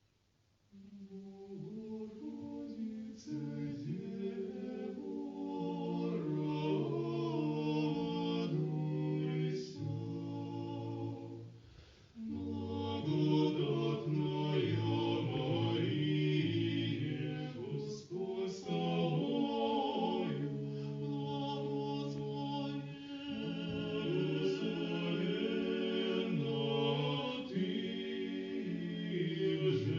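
Unaccompanied choir singing held chords in several voice parts, with a short break about twelve seconds in.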